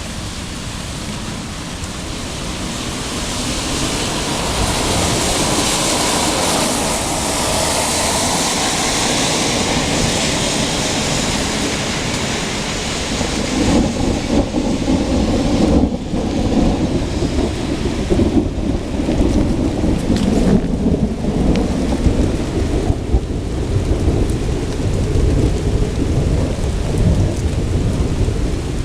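Heavy rain falling through a thunderstorm. The rain's hiss grows over the first several seconds, and through the second half long low rumbles of thunder rise and fall.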